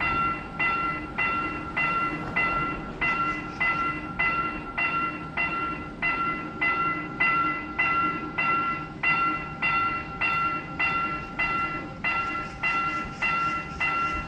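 Level-crossing warning bell ringing, an electronic bell tone struck evenly about one and a half times a second, over a low rumble.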